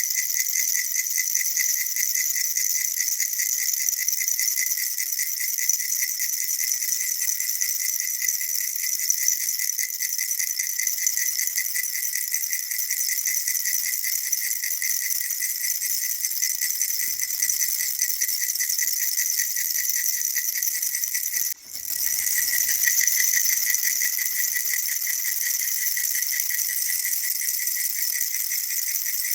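Baby rattle shaken rapidly and continuously, a steady dense rattling with a bright, jingly edge. It breaks off for an instant about three-quarters of the way through and picks straight up again.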